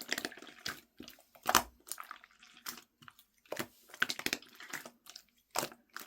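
Wet squishing and crackling in irregular short bursts, about one or two a second, with brief quiet gaps between.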